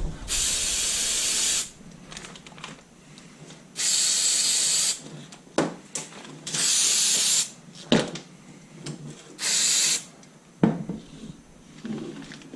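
Aerosol electrical contact cleaner sprayed into wiring-harness connectors in four hissing bursts, each about a second long or less. A few small clicks and knocks of handling fall between the bursts.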